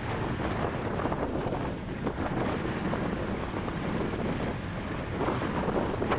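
Strong wind buffeting the microphone, with the rush of rough, choppy sea beneath it.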